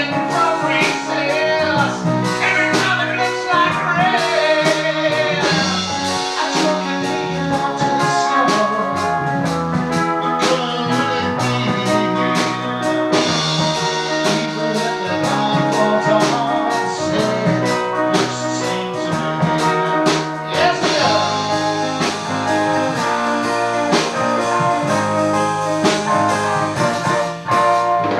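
A band playing a song, with a singer, guitar and drum kit.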